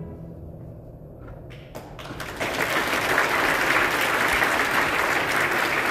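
A short hush with a few scattered claps, then the audience breaks into full, steady applause about two seconds in.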